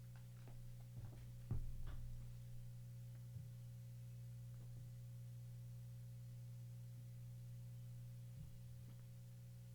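Quiet room tone: a steady low hum with a faint higher tone over it, broken by a few faint short clicks or knocks, the loudest about a second and a half in.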